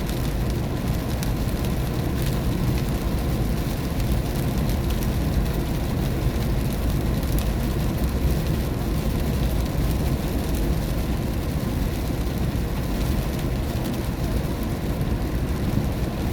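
Car driving in rain, heard from inside the cabin: a steady low rumble of tyres and engine under a hiss of rain, with scattered light raindrop ticks.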